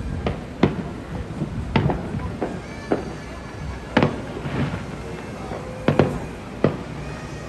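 Fireworks going off: a string of sharp bangs, about seven of them at uneven gaps of a half second to two seconds.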